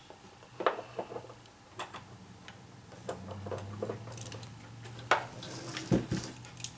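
Scattered sharp clicks and light knocks of plastic parts as a Kaz humidifier's housing is handled and taken apart by hand.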